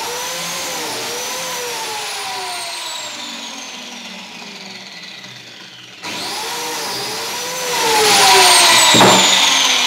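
Ozito biscuit joiner cutting biscuit slots in pallet timber. The motor whines, then winds down slowly over several seconds. It starts again about six seconds in and turns louder and rougher from about eight seconds, as the blade cuts into the wood.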